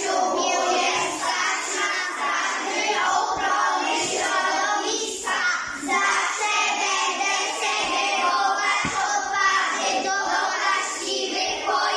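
A group of children singing together, with many young voices over one another.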